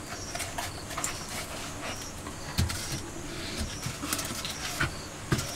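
Wood knocking against a clay cooking stove as a log is laid across its top and shifted into place: a few dull thumps among scattered light clicks.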